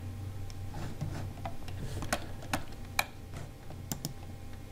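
Irregular sharp clicks from computer mouse and keyboard use, about half a dozen, over a low steady hum.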